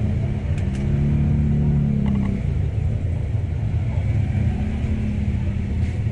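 A steady low motor rumble, with a few light clicks about half a second in and again near the end.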